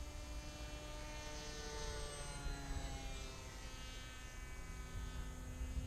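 Electric motor and propeller of a 3D-printed radio-controlled model plane whining overhead, the pitch dropping as it passes about two seconds in.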